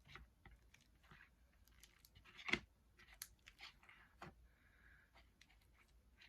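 Near silence with scattered faint clicks and rustles; one louder click about two and a half seconds in.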